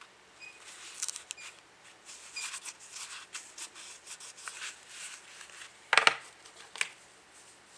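Gloved hands handling a slim Zippo lighter in polished chrome: rubbing and light metallic clicks, with a few small ringing tones in the first few seconds and one louder, short clack about six seconds in.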